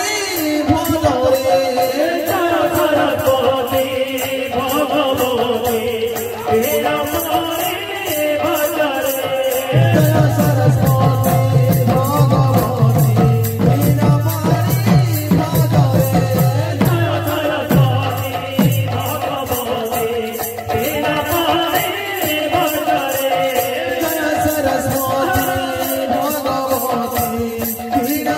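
Baithaki kirtan devotional music: singing over a fast, steady rattling jingle of hand cymbals. A low drum part comes in about ten seconds in and drops out around nineteen seconds.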